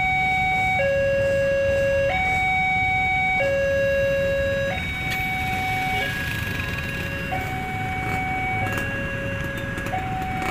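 Railway level-crossing warning alarm: an electronic two-tone signal stepping back and forth between a lower and a higher tone about every 1.3 seconds, over a steady low rumble.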